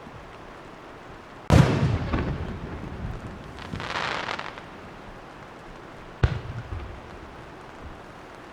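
Fireworks shells bursting overhead: a loud boom about one and a half seconds in that rolls and dies away over a couple of seconds, a rushing hiss a little later, and a second sharp boom about six seconds in.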